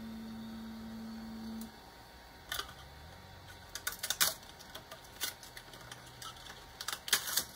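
A steady low hum from the 3D printer cuts off under two seconds in. After that come scattered sharp clicks and taps as a hand grips and works the freshly printed PLA test block on the printer bed, with a tight cluster of clicks near the end.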